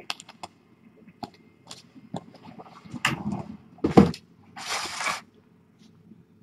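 A cardboard shoebox handled and moved by hand: light taps and clicks, a sharp thump about four seconds in, then a brief rustling scrape.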